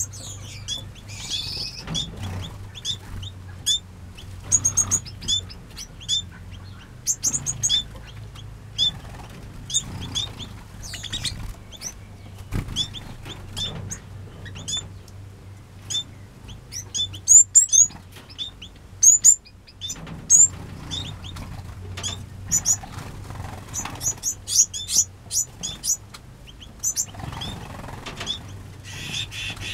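Small aviary finches and waxbills chirping: many short, high, sharp calls throughout, some in quick runs of several, over a low steady hum.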